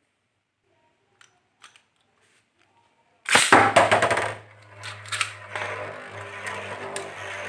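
Metal Fight Beyblade spinning tops launched into a plastic stadium: after a few faint clicks, a sudden loud rattling burst about three seconds in, then the tops spinning with a steady hum and scattered sharp clashes.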